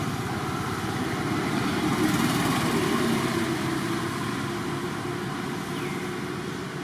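A motor vehicle's engine running, growing louder for a couple of seconds and then fading, as if passing by.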